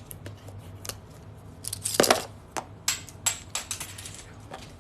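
Packaging of a box of hockey trading cards being handled and opened: crinkling and sharp clicks, loudest about two seconds in, then a quick run of crisp clicks.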